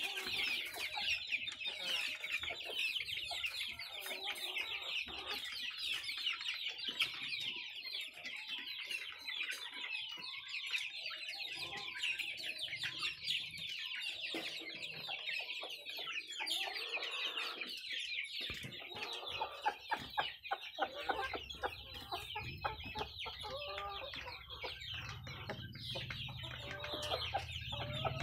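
A flock of village chickens clucking and calling at a feed trough, a dense, continuous chatter of many short high calls. A few sharp knocks come about two-thirds of the way in, and a low rumble joins in over the last few seconds.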